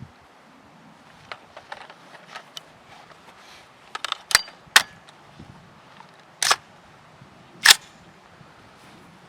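Sharp metallic clicks and clacks of an AR-15 rifle's action being worked by hand while clearing a malfunction, which the shooter suspects is caused by the ammunition. Small clicks are followed by four louder clacks in the second half, the last the loudest.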